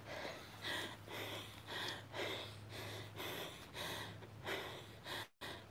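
A person panting hard from walking uphill, about two quick breaths a second, close to a phone's microphone. The sound drops out completely for a moment near the end.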